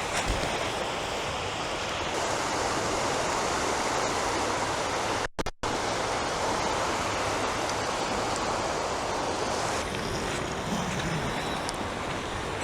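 Surf of the incoming tide washing on the beach, a steady rush of breaking waves, with the sound cutting out twice very briefly about five seconds in.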